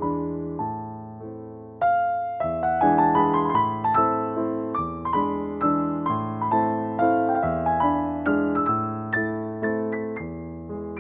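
Background piano music: a steady run of gently struck notes and chords, with a louder chord about two seconds in.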